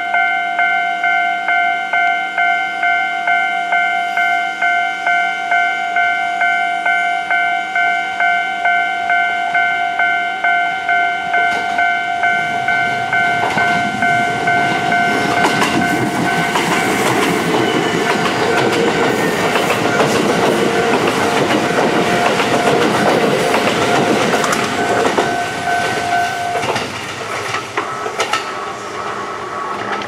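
Japanese level-crossing warning bell ringing in a steady repeating pattern, about two strikes a second, while a Kintetsu 2410/2610-series electric train approaches. The train's wheel and motor noise builds to a loud rush as it passes close by, with the bell still ringing. The bell stops shortly before the end and the train noise thins as it moves away.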